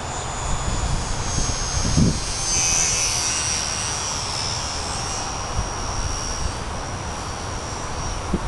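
Scratch-built foam RC plane's electric motor and propeller: a thin high whine that swells about three seconds in as the plane passes overhead, then eases off. Wind buffets the microphone throughout.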